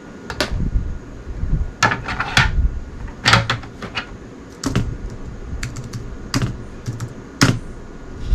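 Computer keyboard typing: irregular keystrokes, single and in short runs.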